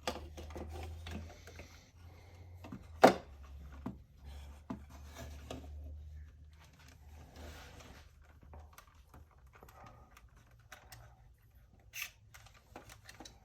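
Light clicks and rubbing from hands handling the opened plastic Sax-A-Boom toy and its circuit board, with a sharp click about three seconds in and another near the end.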